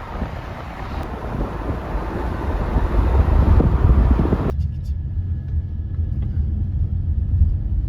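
Wind rushing over the microphone, cut off abruptly about four and a half seconds in, leaving a steady low road rumble as from inside a moving car.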